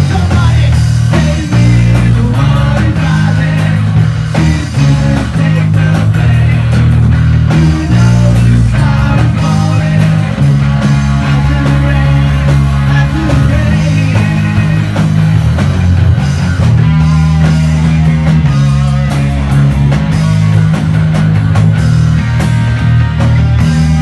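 Live rock band playing loudly: electric bass, electric guitars and a drum kit, with a heavy bass line.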